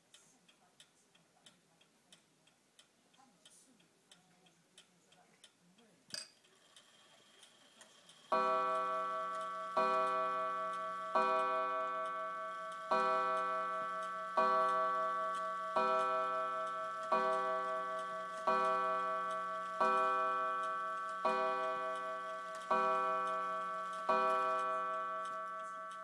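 Freshly repaired old mantel clock ticking, with a click about six seconds in, then striking twelve: twelve ringing strikes about a second and a half apart, each fading before the next.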